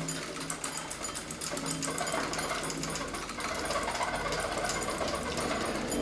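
Fast mechanical rattling and buzzing from objects set vibrating by a sound installation's copper-coil devices, with a few low held tones underneath.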